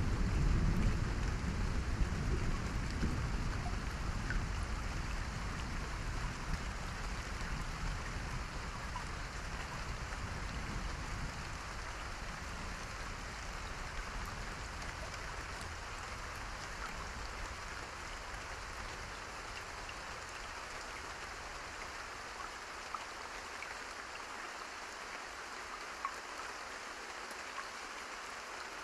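Steady rainfall hissing, with a low thunder rumble at the start that slowly dies away over the first ten seconds or so, leaving the rain alone.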